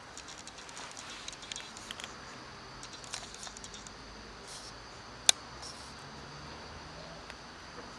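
A cat eating dry kibble from a plastic tub: scattered small crunching clicks, with one sharp click a little past halfway.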